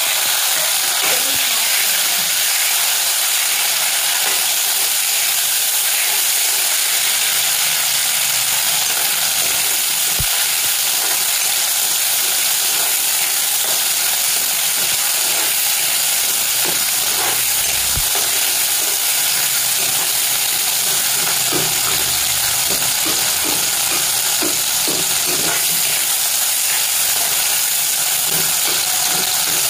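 Chopped tomatoes and browned onions sizzling steadily in hot oil in a kadhai, stirred with a metal spoon that scrapes and knocks against the pan now and then.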